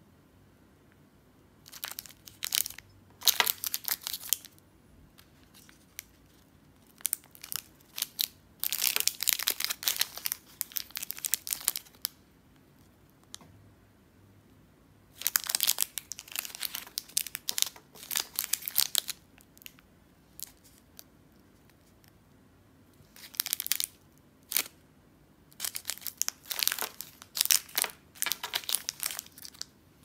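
Shiny plastic candy wrappers crinkling as individually wrapped cough drops are picked up and handled, in four bouts of crackling with quiet pauses between them.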